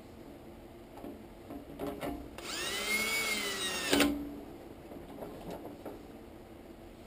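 Cordless drill/driver running for about a second and a half on a screw at a motorcycle fuel-tank filler cap ring, its motor whine rising in pitch and then easing off. It stops with a sharp click. A few light clicks and taps of handling come before and after.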